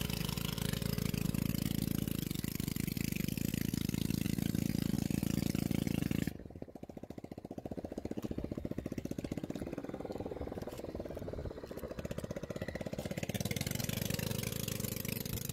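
Small engine running steadily with a fast, even firing beat. About six seconds in, a loud hiss on top of it cuts off suddenly, leaving the engine's beat plainer.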